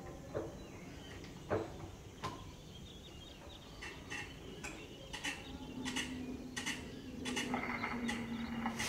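Hand-cranked horn gramophone being wound and handled: a few separate clicks, then a run of sharp clicks about two a second in the second half. A steady low hum comes in about halfway through.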